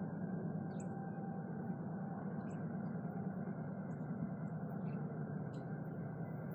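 Low, steady rumble of the approaching train's General Electric AC4400CW-type diesel locomotives, still far off down the line.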